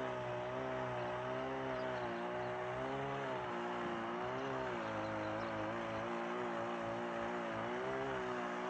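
Two-stroke chainsaw running steadily while cutting river ice to free boats, its pitch wavering slightly up and down as the chain bites.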